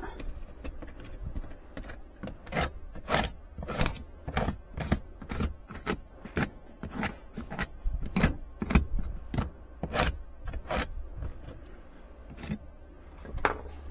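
Repeated short rubbing and scraping strokes by hand, roughly two a second, as something is squeegeed flat against a surface; the strokes thin out near the end.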